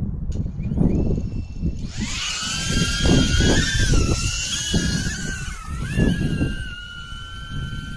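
Drone propellers whining, rising in pitch as they spin up in the first two seconds, wavering, then settling into a steady whine. Gusty wind rumbles on the microphone underneath.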